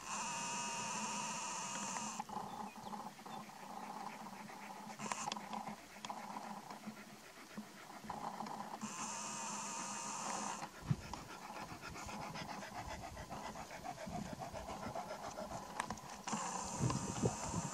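Dog panting close by, a fast run of short breaths. A faint high hiss or buzz comes and goes three times: at the start, about halfway through and again near the end.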